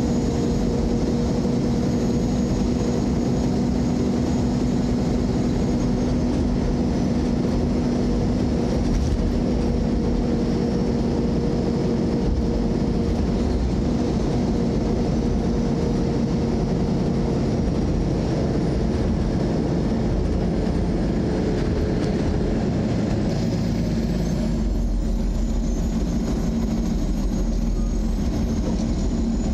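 Steady road and engine noise inside a moving car's cabin, with a steady droning hum; the low rumble grows stronger near the end.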